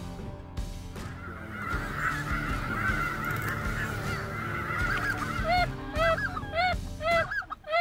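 A flock of geese calling: a dense, overlapping chatter of many birds, then from about five seconds in a quick run of loud single honks, roughly three a second.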